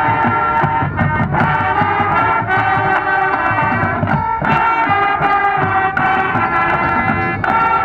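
High school marching band playing: the brass section holds full chords that change every second or so, over sharp drum hits.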